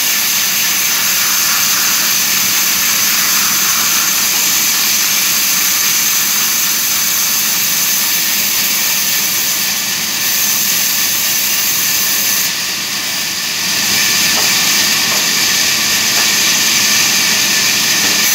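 Horizontal band sawmill running, its band saw blade cutting lengthwise through a log on the carriage: a loud, steady high whine and hiss that dips briefly about twelve seconds in.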